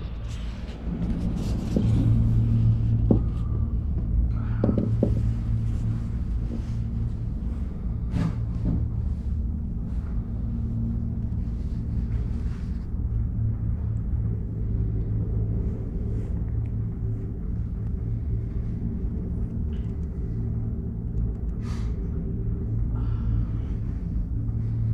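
Steady low rumble and hum of a moving tricable gondola cabin in motion, heard from inside the cabin, with a few sharp clicks and knocks, most of them in the first few seconds.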